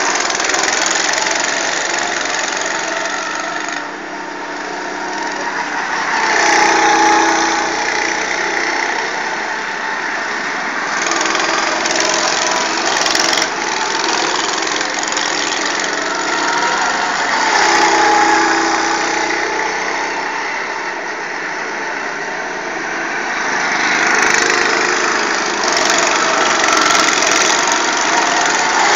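Small go-kart engines running as several karts lap the track. The engine note rises and falls as karts pass close, about every ten seconds.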